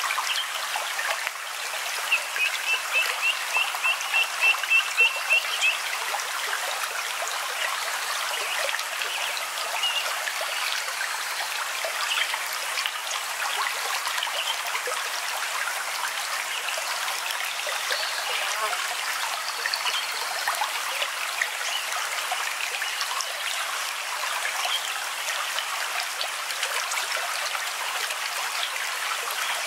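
A stream of running water trickling and babbling steadily. About two seconds in, a bird gives a quick series of about a dozen short notes that grow louder over some four seconds.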